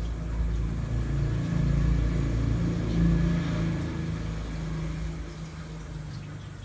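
A motor vehicle's engine rumbling, growing louder to a peak about two to three seconds in and then fading away.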